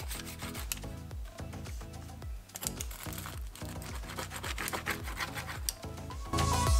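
Background music with a steady beat, with a pizza wheel cutter rolling through a crisp charred crust and scraping on a wooden board.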